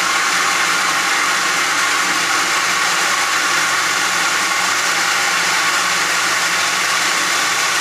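Steady rushing hiss of water under pressure in household plumbing, with a faint low hum underneath, as the newly repaired pipe is brought up to test pressure.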